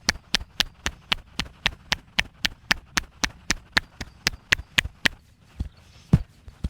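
Wooden massage sticks tapping rapidly and evenly on the body, about four sharp strikes a second, giving way after about five seconds to a few slower, duller thumps.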